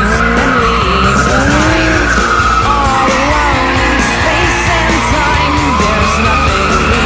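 Drift cars sliding, with tires squealing and engine pitch rising and falling, mixed with background music with a steady beat.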